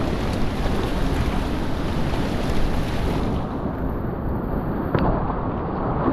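Whitewater of the Potomac at Great Falls rushing steadily, with wind rumbling on the microphone. A little past halfway the high hiss drops away, and a single sharp knock comes about a second before the end.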